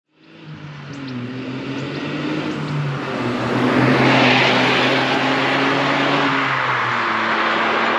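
Smart Roadster Brabus's small turbocharged three-cylinder engine droning as the car drives, with wind and road noise that swells about four seconds in. The engine note drops about seven seconds in.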